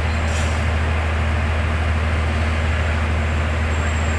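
Heavy diesel engine running steadily at a constant speed, a deep even hum with no change in pitch or level.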